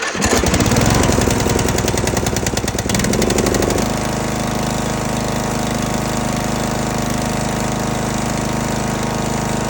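Briggs & Stratton Intek 20 hp engine on a Husqvarna zero-turn mower firing up and running rough and uneven for the first few seconds, then settling into a steady run about four seconds in.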